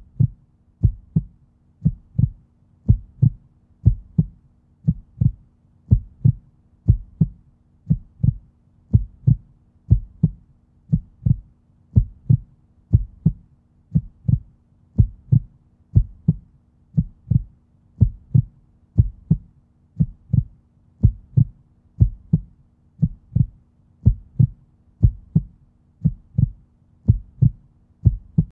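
A slow heartbeat: low double thumps, about one pair a second, keep an even beat over a faint steady hum.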